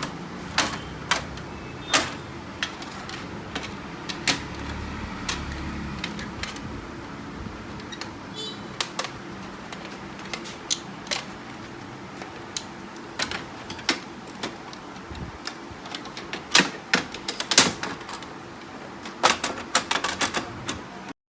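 Irregular clicks and knocks of plastic parts on a Canon MF4820d laser printer being handled and worked on, over a steady low hum. The clicks come thicker and louder in two clusters near the end.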